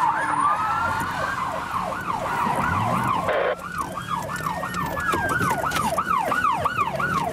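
Several police sirens sounding at once, mostly in fast yelp mode with quick overlapping up-and-down sweeps, while a slower wail rises and falls through it.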